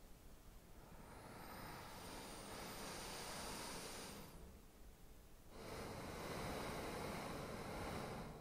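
Two swells of breathy, hissing air noise with no clear pitch. The first builds slowly from about a second in and breaks off; the second starts suddenly a little over a second later and stops near the end.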